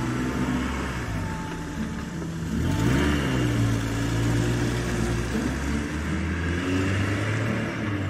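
Motor-vehicle engine running steadily, with a rev rising and falling about three seconds in.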